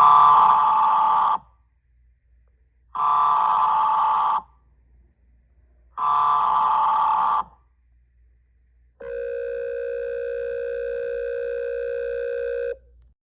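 Emergency Alert System signal tones: three short, identical bursts of data header tone, each about a second and a half long with silence between them. About nine seconds in comes a steady, buzzy attention tone held for nearly four seconds.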